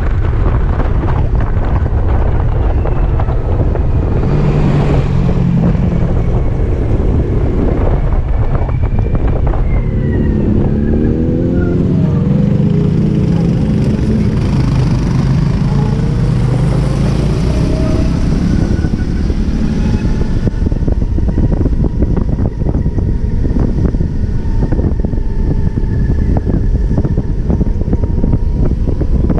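Wind rushing over the microphone of a BMW C-Evolution electric scooter in motion. Through the middle stretch, as the traffic bunches up and slows, a nearby motorcycle's engine is heard, its pitch rising and falling as it revs.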